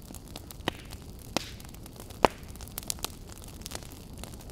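Wood campfire crackling, a steady low rumble of flame under sharp irregular pops of burning wood, the loudest a little past two seconds in and a quick run of three near the three-second mark.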